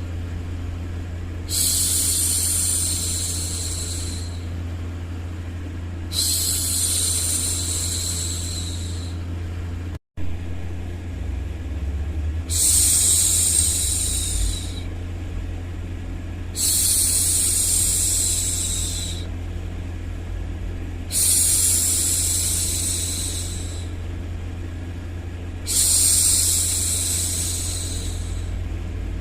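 A woman's long 'shhh' hushing sounds, repeated six times about every four to five seconds, over steady low white noise. The sound cuts out for a split second once near the middle.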